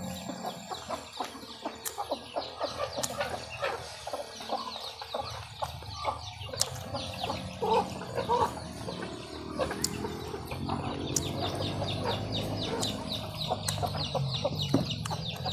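Chickens clucking in many short, repeated calls, with a low hum underneath that gets louder in the second half.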